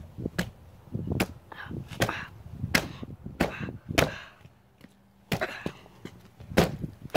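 Footsteps crunching on frozen, rock-hard snow and ice, a sharp step at walking pace, with a short pause a little past halfway.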